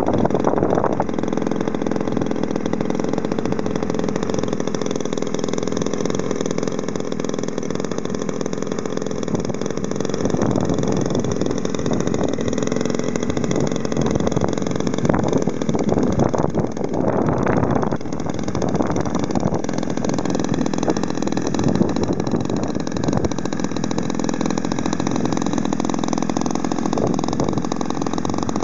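US Engines 42cc single-cylinder two-stroke gasoline engine on an RC PT-19 model airplane running steadily, swinging an 18-inch propeller, on an engine run to adjust the motor. Its note shifts briefly a few times about halfway through.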